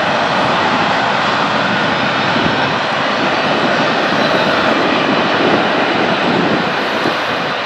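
Jet aircraft engines running at an airport, a loud steady rushing noise.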